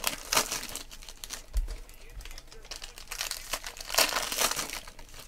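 Foil wrapper of a Panini Prizm football card pack crinkling and tearing as it is opened by hand. It comes in irregular rustling bursts, loudest just after the start and again around four seconds in.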